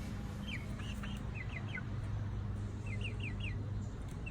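Young chickens, eight-week-old pullets, peeping: short falling chirps in quick groups of three or four, repeated, over a low steady hum.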